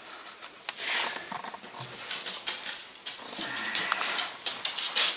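A small dog's claws clicking on a hard wooden floor as it moves about, an irregular patter of quick taps.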